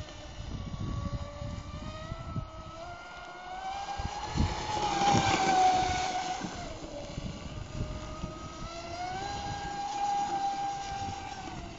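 Cyber Storm 33 electric mono-hull RC boat running flat out on 4S LiPo power, its motor whine rising in pitch and growing loudest as it passes close about five seconds in, then dropping as it moves away. The whine rises again near the end as the boat makes another run.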